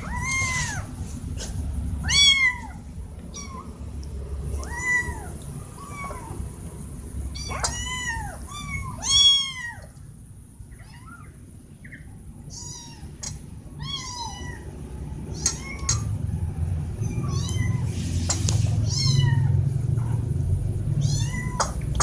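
Kittens meowing over and over in short, high calls that rise and fall in pitch, with a lull of a couple of seconds near the middle. A steady low rumble runs underneath, stronger in the second half.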